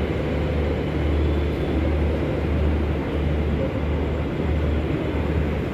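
Garib Rath express passenger coaches rolling slowly past on the track, a steady rumble with a low hum that swells and fades over and over.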